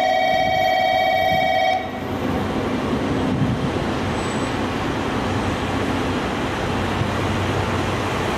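A station's electronic departure bell ringing steadily, cutting off abruptly about two seconds in, followed by the steady rumbling noise of a train moving through the platform.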